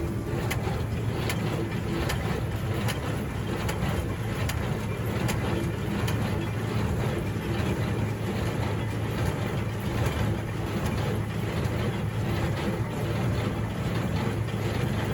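Cockshutt 1650 tractor pulling a square hay baler, the engine running steadily under load. A sharp knock repeats a little more than once a second.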